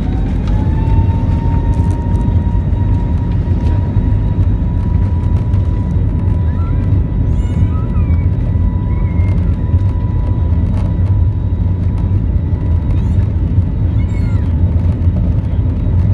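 Jet airliner's engines spooling up to takeoff power: a whine rising in pitch over the first second or two, then holding steady over a loud, steady rumble. A few short chirps sound over it partway through.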